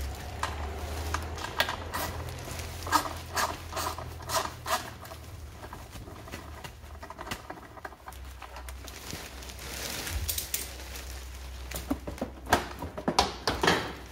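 Hard plastic scooter body panels being handled and unclipped, giving irregular clicks, knocks and rattles that cluster about three seconds in and again near the end, over a low steady hum.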